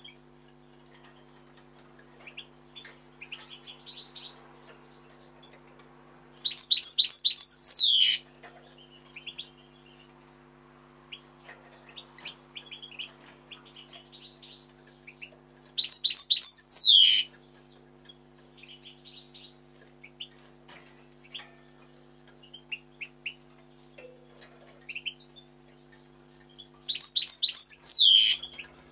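European goldfinch singing: soft scattered twittering, broken three times by a loud phrase of rapid, tinkling high notes that ends in a quick downward-sliding note.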